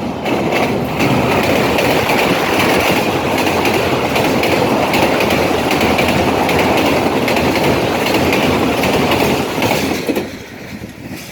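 Khyber Mail passenger train rolling into a station, its wheels clattering loudly over the rail joints, the sound dropping away about ten seconds in.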